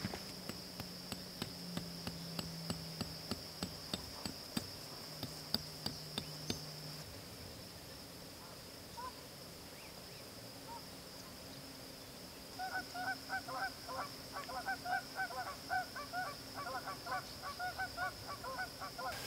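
Geese honking over and over from about twelve seconds in, above a steady high chirring of crickets. A run of light clicks comes in the first several seconds.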